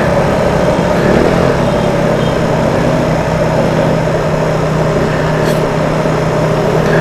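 Motorcycle engine running steadily while riding, with a constant noise haze over it.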